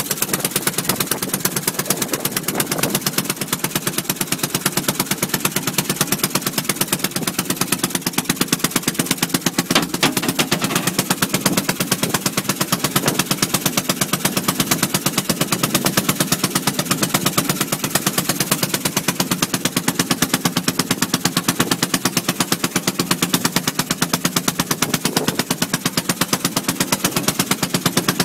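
A 3 hp Atlantic single-cylinder make-and-break marine engine running steadily, driving the boat along. It fires in a fast, even train of sharp putt-putt pops.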